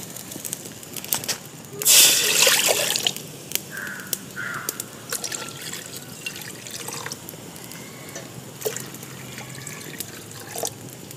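Water poured into a cooking pot in one loud rush lasting about a second, starting about two seconds in. Light clinks and knocks follow.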